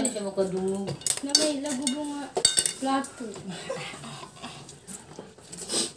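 Forks and chopsticks clicking and scraping against plates as people eat noodles, with a few short wordless voiced sounds during the first half.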